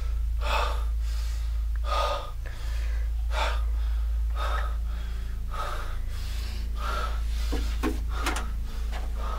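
A man breathing in heavy, ragged gasps, about one a second, over a steady low hum.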